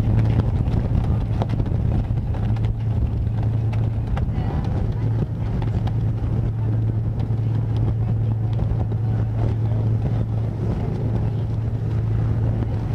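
Excursion boat's engine running with a steady low hum, with wind buffeting the microphone.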